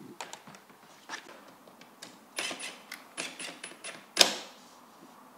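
Light clicks and taps of wooden wall boards being handled and fitted against the wall, with a quick run of clicks in the middle and one sharper knock about four seconds in.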